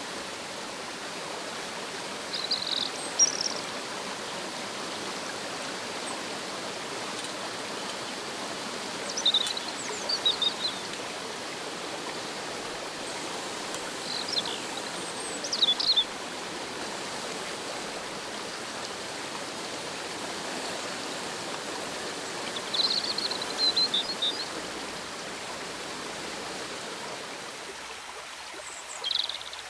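A small waterfall and rocky stream rushing steadily, with short high chirps every few seconds.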